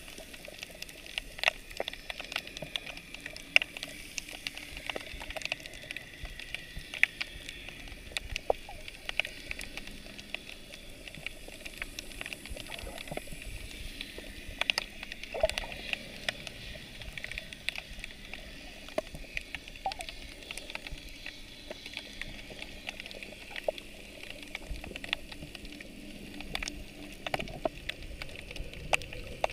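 Underwater sound picked up by a submerged camera: a steady hiss with frequent, irregular sharp clicks and crackles.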